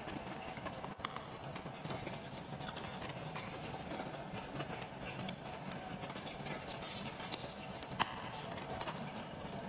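Close-up chewing and mouth sounds of someone eating oden, soft wet clicks and smacks over and over, with one sharper click about eight seconds in.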